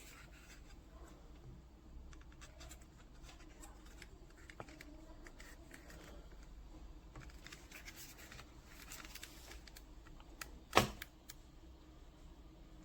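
Faint handling noises: scattered small clicks and scrapes over a low hum, with one sharp, louder click about eleven seconds in.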